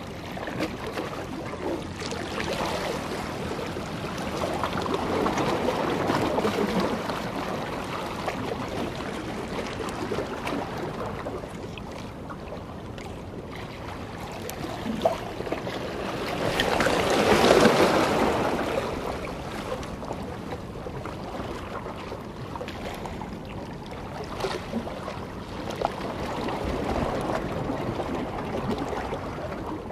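Sea water washing against breakwater rocks in slow swells that rise and fall over a few seconds, loudest about halfway through, mixed with wind noise.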